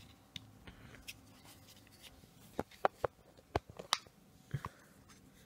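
Sharp plastic clicks from handling a Hypergear wireless earbud charging case, a quick run of about eight in the second half, as its latch-fastened lid is worked.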